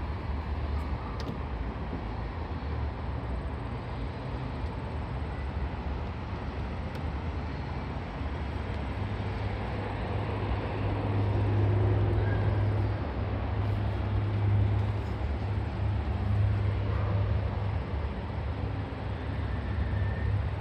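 Outdoor city background: a steady low rumble with a faint hiss above it, louder from about halfway through.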